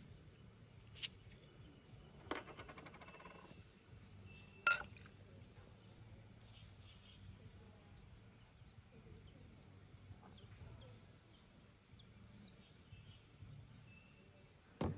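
A few scattered clinks and knocks of camp cookware over quiet outdoor background noise, one of them about two seconds in followed by a brief rattle.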